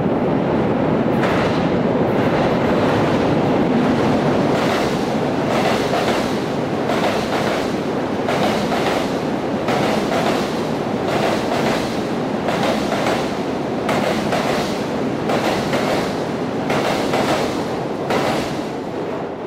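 Korail electric commuter train running through a station at speed: steady rumble and rush of the passing cars, with wheels clacking over the rail joints again and again. It fades a little near the end.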